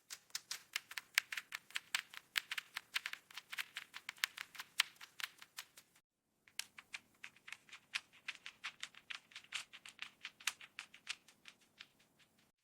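Mechanical keyboard keys pressed in fast, irregular runs of many crisp clicks a second, with a short break about halfway.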